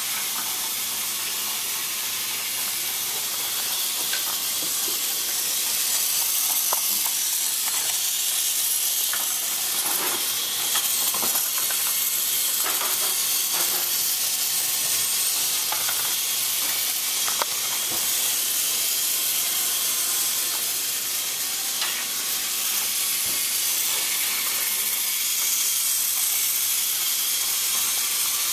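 Battery-powered GeoTrax toy train running on plastic track: a steady high hiss from its motor and wheels, with scattered small clicks.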